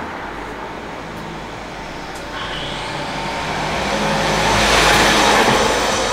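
A road vehicle passing by outside, its noise swelling to a peak near the end and then easing off.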